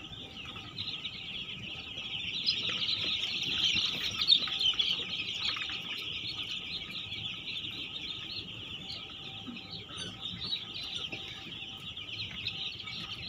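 A large flock of young chicks peeping together, a dense, continuous high-pitched chorus of chirps, slightly louder about four seconds in.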